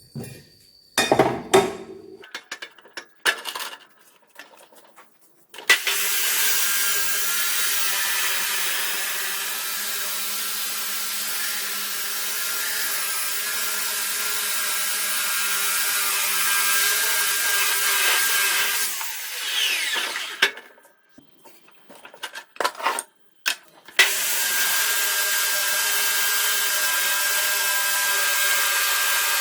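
Electric drill motor running at a steady speed for about fourteen seconds, then again from about four seconds before the end. Before and between the runs come clattering knocks and clicks of the tool and work being handled.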